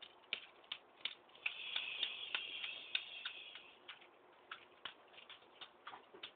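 Irregular sharp clicks and ticks, about two or three a second, with a high hiss for about two seconds near the middle.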